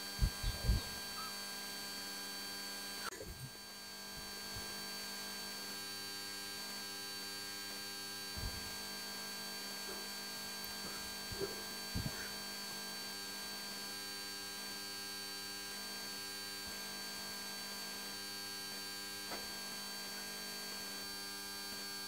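A steady electrical hum made of many fixed tones, with a few soft low thumps near the start and again around the middle.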